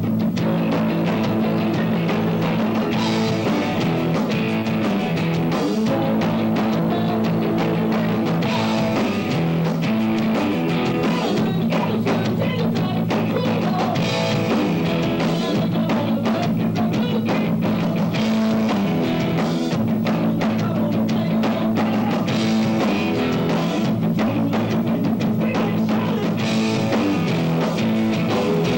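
New wave rock band playing live at a steady loud level, with a driving drum-kit beat under sustained guitar and keyboard tones.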